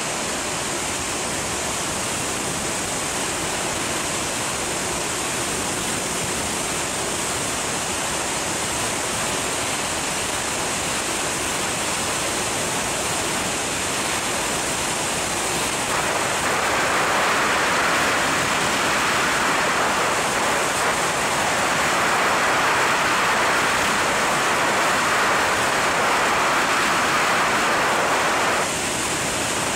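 Freefall wind rushing over the camera's microphone during a skydive: a steady, loud noisy rush that grows louder about halfway through and dips briefly near the end.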